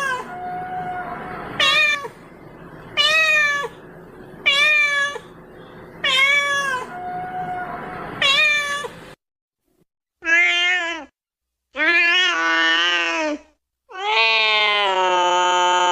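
Domestic cat meowing: six short meows at a steady pace of about one every second and a half, then after a brief silence three longer, drawn-out meows, the last held for several seconds.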